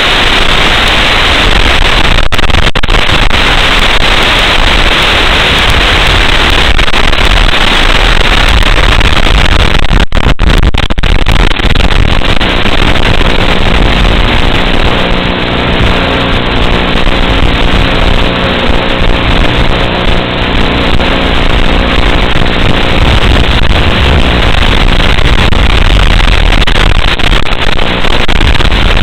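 Tiny FPV whoop drone's motors buzzing in flight under a loud static hiss. From about twelve seconds in, a steady multi-pitched motor hum comes through more clearly.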